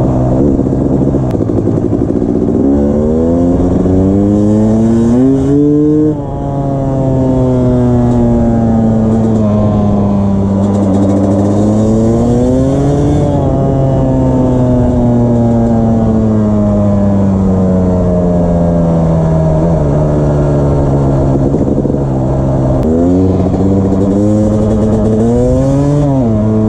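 1999 Honda CR250R two-stroke single-cylinder dirt bike being ridden: the revs climb quickly through the gears about three seconds in and again near the end, with long stretches between where the engine eases off and its pitch slowly falls.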